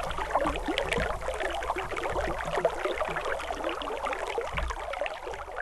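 Creek water babbling and gurgling steadily, slowly fading toward the end.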